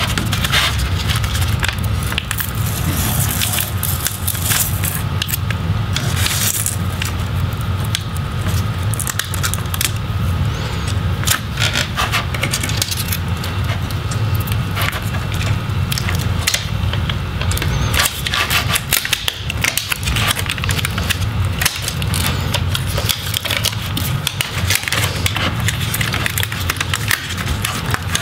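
A plastic spudger scraping and clicking around the edges of a MacBook Pro's aluminium top case, with small crackles as the adhesive-backed keyboard backlight sheet is pried loose, in irregular short strokes over a steady low hum.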